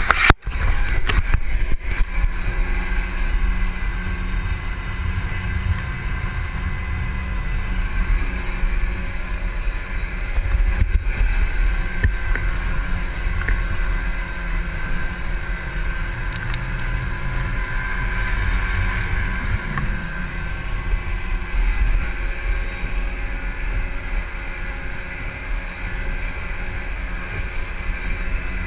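Twin outboard motors running steadily at cruising speed on a small boat, with rushing spray and wind buffeting the microphone.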